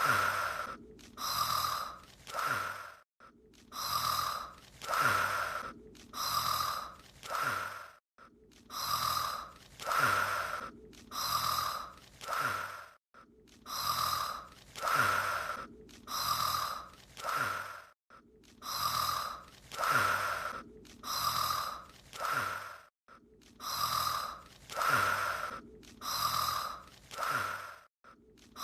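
Anime character's snoring sound effect: about four snoring breaths, then a short break, the same five-second pattern repeating in a loop.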